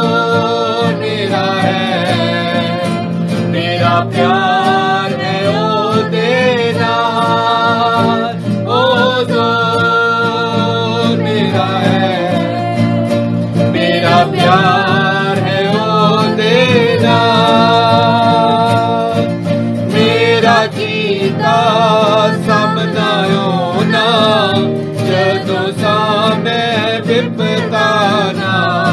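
Music: a sung devotional song, a voice over guitar accompaniment, going on without a break.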